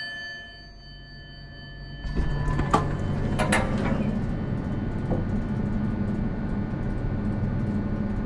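A chime's tones die away, then about two seconds in, sliding doors open with a low mechanical rumble and two clunks, leaving a steady low hum.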